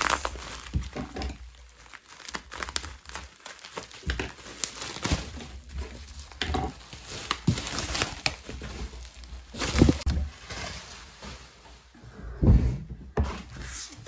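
Bubble wrap crinkling and rustling as it is torn and pulled off a vinyl LP, with a couple of dull thumps in the second half.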